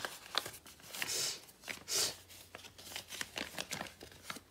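Sheet of paper crackling and rustling as hands unfold and refold a paper origami boat, with many small crisp creases and two longer swishes of paper sliding about one and two seconds in.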